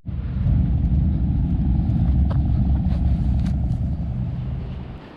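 Loud low rumble that fades away near the end, with a few faint ticks.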